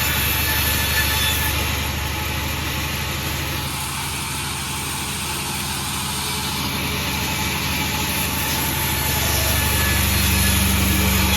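Sawmill machinery running: a steady engine hum with a constant high hiss over it, dipping slightly midway and swelling a little near the end.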